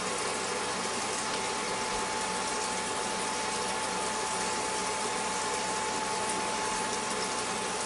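An egg frying in butter and a spoonful of water in a covered square pan on an induction cooktop: a steady sizzle and bubbling under the glass lid, with a thin steady tone running beneath it.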